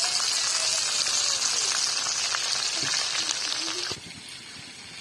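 Chicken frying in hot oil: a steady sizzle with fine crackling that cuts off abruptly about four seconds in.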